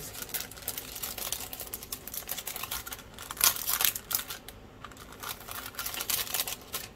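Clear plastic packaging bags crinkling and rustling as they are handled, in a run of irregular crackles with one louder crinkle about three and a half seconds in.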